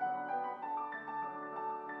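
Grand piano played solo: a melody of separate notes, one every few tenths of a second, over held lower notes.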